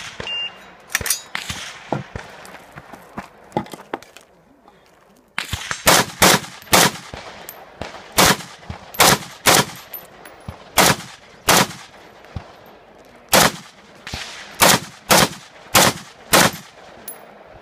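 AR-15-style semi-automatic rifle fired in fast strings of loud shots, mostly in quick pairs. About twenty rounds go off from about five seconds in, with a brief pause partway through.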